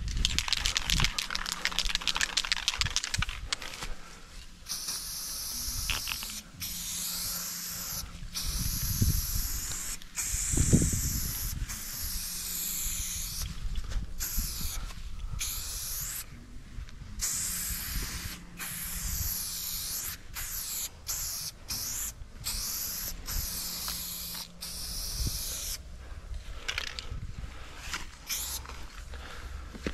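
Aerosol spray paint can hissing in repeated bursts a second or a few long, with short breaks between, as a line of paint is sprayed onto a concrete wall. A couple of low thumps come through about nine and eleven seconds in.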